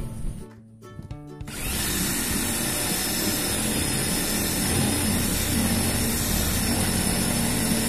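Cordless drill with a spade bit boring into an HPL-faced cabinet door, starting about a second and a half in and running steadily.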